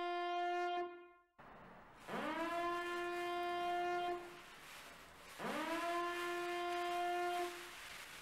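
Repeated siren-like horn blasts. A held note ends about a second in, then two more blasts follow. Each scoops quickly up in pitch, holds one steady note for about two seconds and then stops.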